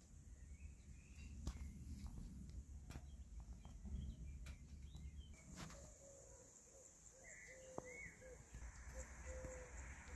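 Faint outdoor garden ambience with distant birds calling: scattered short high chirps at first, then from about halfway a run of short, lower repeated notes and a couple of higher chirps, over a low rumble and a few soft clicks.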